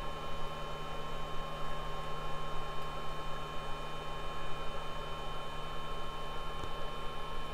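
Steady electrical hum and hiss with a thin, constant high whine; no distinct tool or handling sounds stand out.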